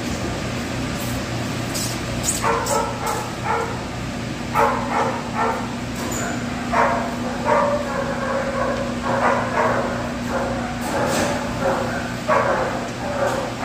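A dog barking over and over in short bursts, over a steady low hum.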